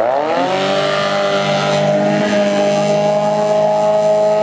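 Outboard motor of a racing inflatable power dinghy running at high revs. Its note drops sharply in pitch as the boat goes past at the start, then holds a steady high whine.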